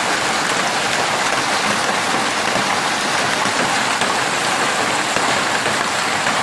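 Heavy downpour of rain mixed with hail pelting a ledge and the ground: a loud, steady, dense hiss of countless impacts.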